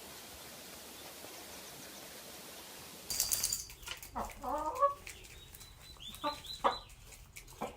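Faint steady hiss, then a sudden clatter about three seconds in, followed by a chicken squawking and clucking in short calls.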